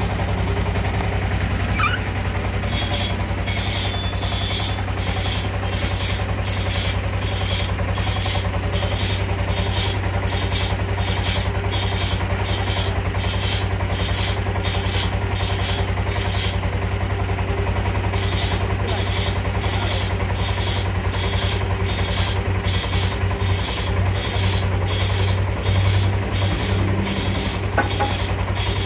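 Large hand saw rasping through teak wood in steady back-and-forth strokes, about two a second, with a pause of a couple of seconds midway. A steady engine hum runs underneath.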